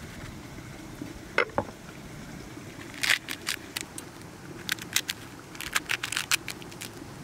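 A large knife scoring a pomegranate's rind with two sharp knocks about a second and a half in, then the fruit being pried apart by hand, its rind and seed clusters splitting with a run of quick crackles and pops.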